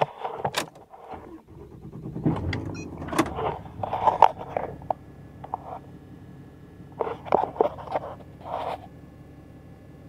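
A truck engine starts up about two seconds in and runs steadily, heard inside the cab, with rustling of clothing and knocks from handling the camera over it.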